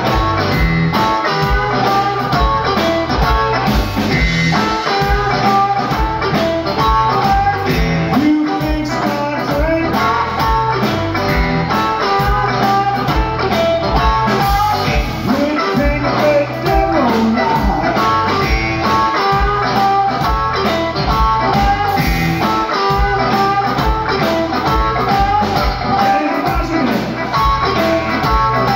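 Live blues band playing, with electric guitar leading over drums at a steady beat.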